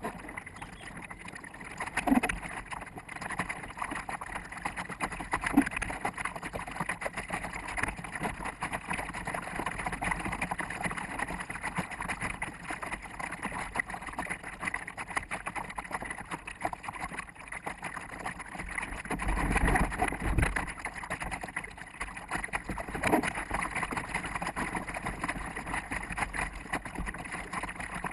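Water rushing and slapping against a sailboat's bow, with wind buffeting the microphone, sped up fourfold so it sounds fast and choppy. A louder low rumble comes about twenty seconds in.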